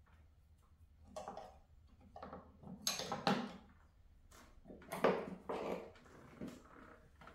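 Tools and objects being handled and shifted about: a series of irregular rustles, scrapes and knocks, loudest about three and five seconds in, over a faint low steady hum.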